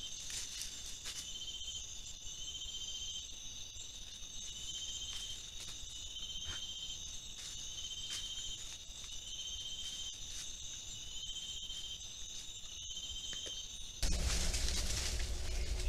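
Night insect chorus in tropical forest: a steady high buzzing with a short pulsed trill repeating about once a second, and a few faint clicks. Near the end it cuts abruptly to a louder, rustling noise.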